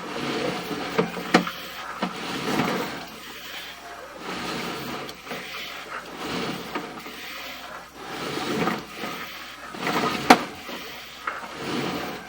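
Sewer inspection camera's push cable being pulled back by hand in strokes, rubbing and scraping in repeated swells, with a few sharp clicks, the loudest about ten seconds in.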